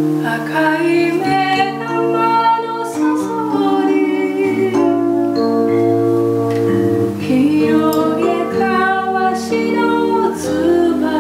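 A woman singing a slow folk-style melody over a keyboard playing sustained chords.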